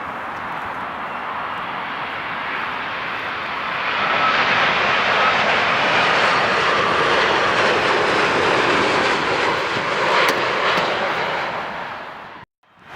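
Boeing 787 Dreamliner landing, its jet engines a steady rushing roar that swells about four seconds in as the airliner passes closest, then fades. Near the end the sound cuts off abruptly at an edit.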